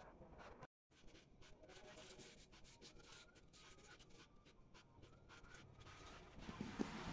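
Faint rustling and rubbing of a sheet of origami paper as fingers fold it and press the creases flat, with small crackles. The sound cuts out completely for a moment about a second in.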